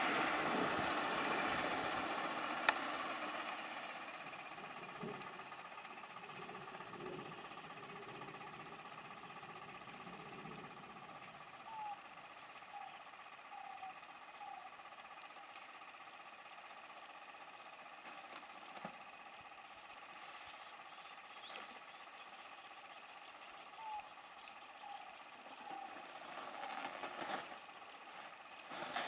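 An insect, cricket-like, chirping high and steady at about two chirps a second, over a broad noise that fades away in the first few seconds; one sharp click comes about three seconds in.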